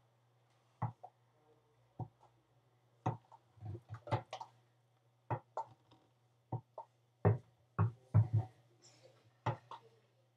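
About twenty irregularly spaced sharp knocks, some with a short ringing tone, the loudest ones bunched around two thirds of the way through, over a steady low hum.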